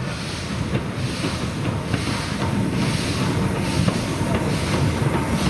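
BR Standard Class 4MT 2-6-4 tank steam locomotive 80097 on the move, its exhaust beating softly about one and a half times a second over a constant rush of steam.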